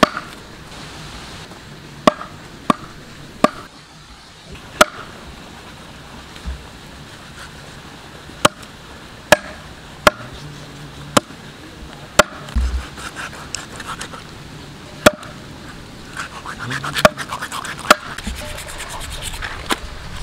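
Cleaver chopping stingray flesh and cartilage on a wooden block: a dozen or so sharp knocks at irregular gaps, with some scraping and rustling of the pieces near the end.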